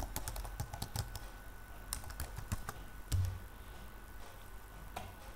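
Computer keyboard typing: a quick run of key clicks for about three seconds, then a single low thump and a few scattered clicks.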